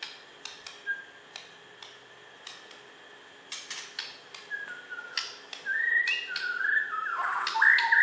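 White-rumped shama (murai batu) in a cage: a series of sharp clicks, then whistled notes from about halfway through that build into a louder, fast run of rising and falling whistles near the end.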